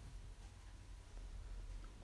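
Quiet room tone with a faint steady low hum; no distinct sound.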